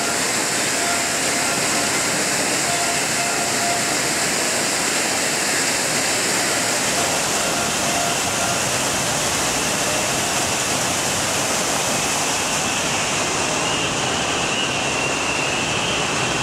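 Water of the Cibeles Fountain pouring over the stepped edges of its tiered basins, a steady rushing hiss. Near the end the hiss thins in its upper range and a faint steady whine joins it.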